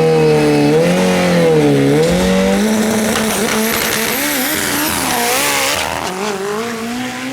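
Mitsubishi Lancer Evolution drag car's engine revving, its pitch swinging up and down again and again, with a hissing noise building up in the middle.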